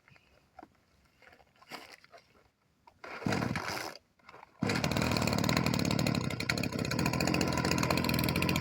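Kioritz SRE2720 brush cutter's small two-stroke engine being pull-started: a short burst about three seconds in, then it catches about four and a half seconds in and runs steadily. The seller lists this engine as having an abnormal hissing noise.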